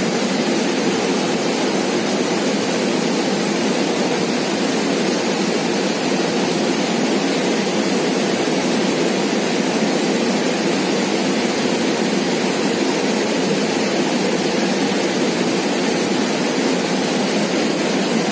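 Steady rushing of flowing river water, an even roar that does not change.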